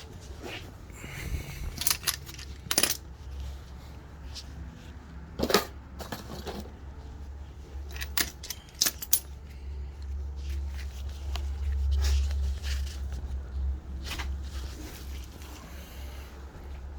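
Metal hand tools and parts clinking and knocking, a series of separate sharp metallic clicks scattered through, over a steady low rumble that swells in the middle.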